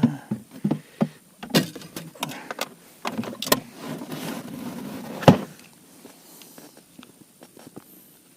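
Irregular knocks and clatter of fishing gear being handled and set down, with one sharp knock about five seconds in, then quiet.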